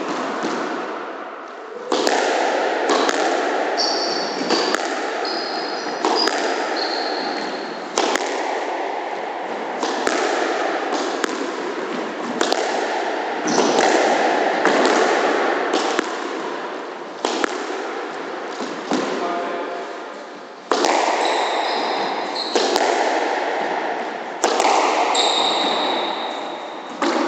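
A squash rally: the ball is struck by rackets and cracks against the walls again and again, each hit ringing round the court. Now and then sneakers squeak on the wooden floor.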